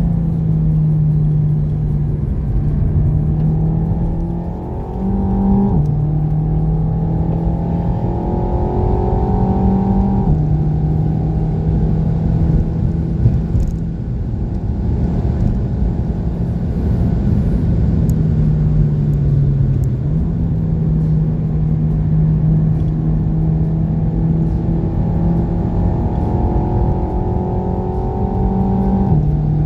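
Renault Mégane RS Trophy's turbocharged four-cylinder engine heard from inside the cabin under hard acceleration. The engine note climbs and drops sharply at upshifts, about six seconds in, about ten seconds in and just before the end, over steady road and tyre noise.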